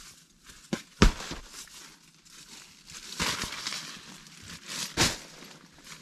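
Rustling and crinkling handling noise, with a sharp knock about a second in and bursts of rustle near the middle and end.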